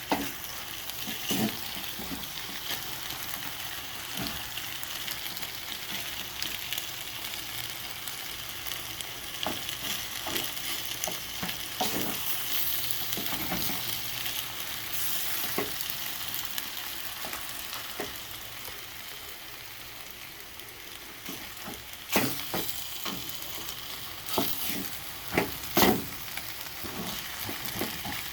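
Food sizzling in a hot frying pan while being stirred: a steady hiss with scattered knocks of a utensil against the pan, several in quick succession near the end.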